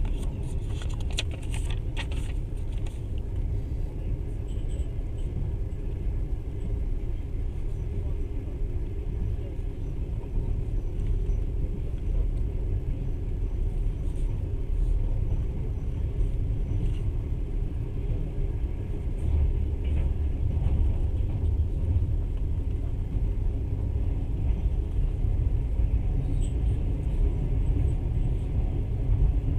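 Steady low rumble of a moving passenger train carriage running on the rails, with a few faint clicks about a second or two in.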